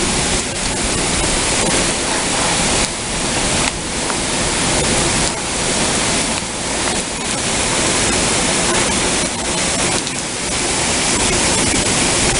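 Heavy thunderstorm downpour: a loud, steady rush of rain and falling water that swells and eases slightly from moment to moment.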